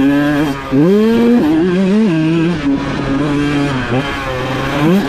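Husqvarna TC125 two-stroke motocross engine under throttle, its pitch rising sharply about a second in, then dropping and holding steady for a couple of seconds before dipping and climbing again near the end.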